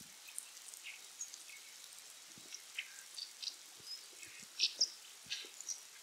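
Brown dipper singing in scattered short, high chirping notes, the loudest a pair near the end. Light drops plop into the water below.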